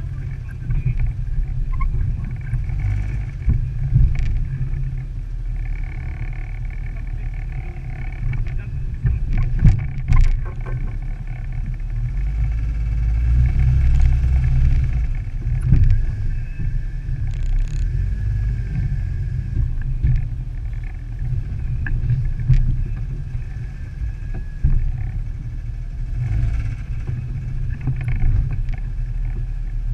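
A 1998 Jeep Wrangler's 4.0L straight-six engine running at low speed while crawling over a rocky trail, a steady low rumble. A few sharp knocks come through near the middle, from the tyres and suspension striking rocks.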